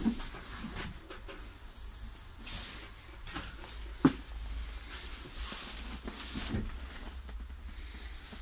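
Inside a city bus's driver cab: a low steady hum with a few short hisses of air and light clicks, and one sharp knock about four seconds in.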